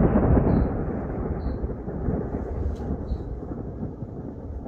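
Thunder rumbling, loudest at the start and slowly fading, following a close clap. A faint short high chirp repeats about once a second over it.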